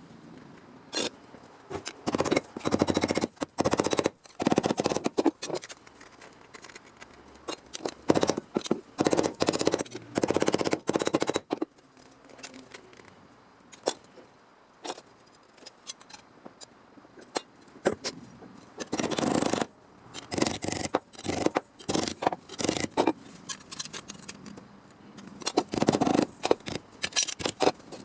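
Welding arc on car-body sheet steel, laid down as short stitch or tack welds: about a dozen crackling bursts of up to a second each, with brief pauses between them.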